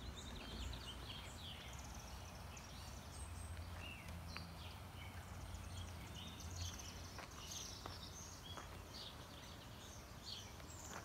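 Faint outdoor ambience: birds chirping off and on over a low, steady background hum.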